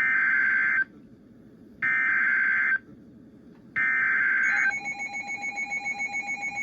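Emergency Alert System SAME header from a NOAA Weather Radio broadcast: three one-second bursts of warbling digital data tones, about a second apart, carrying the coded alert (here a flash flood warning). A pulsing alarm tone begins near the end.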